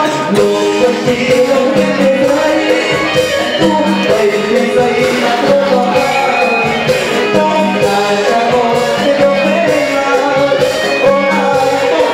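Music with a singing voice and a steady beat.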